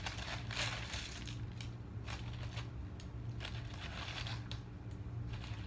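Hands pushing an orchid plug into potting media in a small container: irregular crunching and rustling of the media, over a steady low hum.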